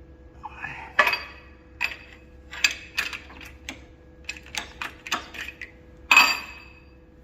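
Sharp metal-on-metal clinks and knocks, about a dozen ringing strikes in irregular succession, from working on a steel diff axle while straightening it; the loudest comes near the end. A faint steady machine hum runs underneath.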